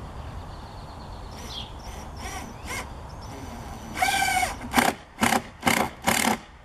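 A crow cawing: one longer caw about four seconds in, then four short caws in quick succession. A smaller bird gives a brief falling chirp earlier.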